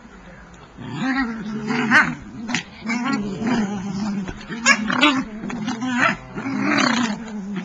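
Schnoodles play-growling while wrestling: a low, wavering growl in long stretches, with several short sharp noises mixed in.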